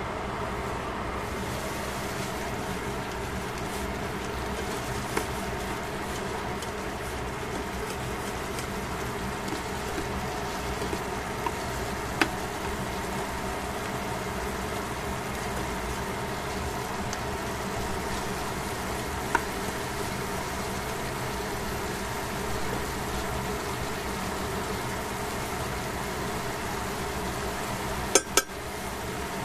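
Cabbage, mushrooms and carrot simmering and sizzling in a stainless steel pan over a steady background hum. Tongs tick against the pan now and then, with a quick clatter of clicks near the end.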